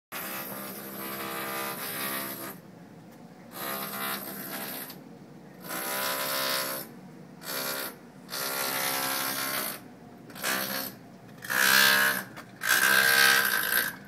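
Harsh, pitched mechanical buzzing coming through a baseboard heating convector in bursts of one to two seconds with short pauses between them. The bursts grow louder and shriller in the last few seconds. The uploader ties the noise to construction work.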